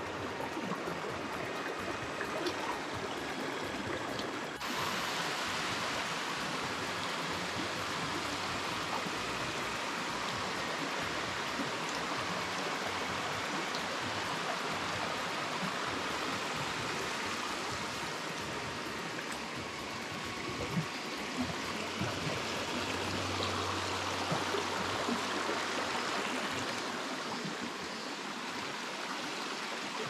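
Shallow mountain stream running over rocks: a steady rushing of water that turns suddenly louder about four and a half seconds in.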